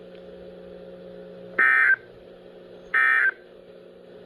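Emergency Alert System end-of-message (EOM) data bursts: short, identical digital tone bursts about a second and a half apart, two in full with a third starting at the very end. They signal that the alert message is over. A faint steady hum underneath stops as the first burst begins.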